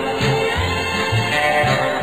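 Background music with a steady bass line and guitar.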